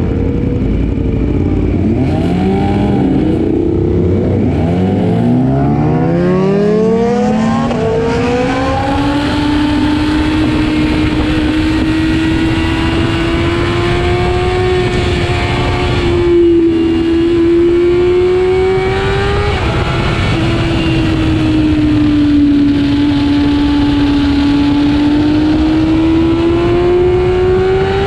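Sport motorcycle engine heard from on board, accelerating hard from a standstill through several quick upshifts, the pitch climbing and dropping back at each shift. It then holds a high, steady engine note at track speed, with a couple of brief shifts later on.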